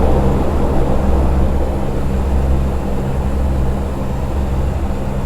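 Convair CV580's turboprop engines and propellers heard from inside the cockpit during the landing roll-out: a loud, steady drone with a low propeller hum, easing off slightly toward the end.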